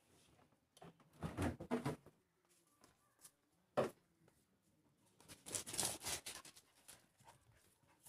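Two spells of scuffling and rustling about a second and five seconds in, with a single sharp click just before the middle.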